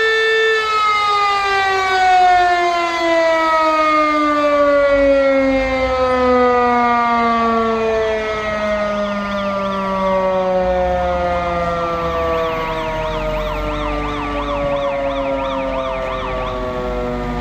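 Motor-driven siren holding a steady tone, then winding down, its pitch falling slowly and evenly for some fifteen seconds as it coasts to a stop. From about eight seconds in, a fire engine's electronic siren yelps rapidly up and down over it, and a low engine rumble comes in near the end.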